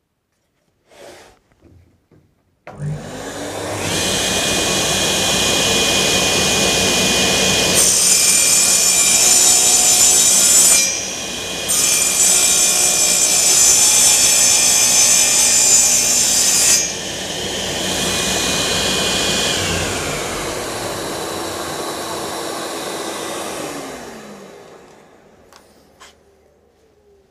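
Table saw started up and running, cutting a 45-degree bevel through a wooden board, louder during two cutting stretches with a short break between them, then switched off and winding down.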